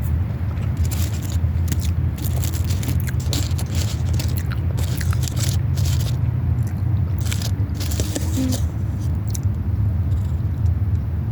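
Close-up chewing and biting of fast food, with many irregular crunchy, crackly bites over a steady low hum.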